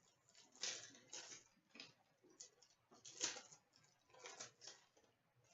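Faint, brief swishes and rustles of trading cards sliding against each other as a pack of hockey cards is handled and flipped through, about seven soft strokes spaced irregularly.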